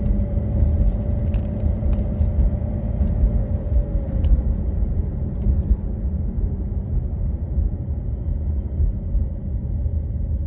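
A motor vehicle underway: a steady low engine and road rumble with a constant hum that dips slightly in pitch about four seconds in.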